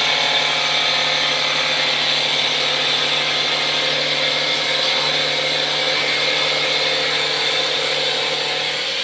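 Automatic wood lathe running steadily: a constant motor hum under a dense, even noise of the cutter working the wood.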